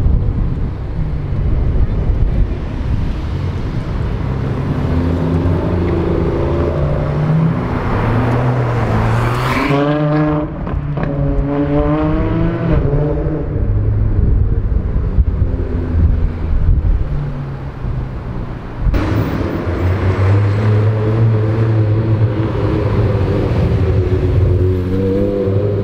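Supercar engines revving and accelerating hard, the engine pitch climbing in several rising sweeps as the revs build through the gears. One car passes close about ten seconds in. About two-thirds through, the sound switches abruptly to another car's engine revving.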